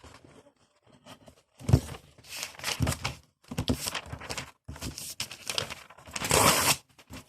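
Paper rustling and crinkling in a run of short bursts, with a longer, louder rasp about six seconds in.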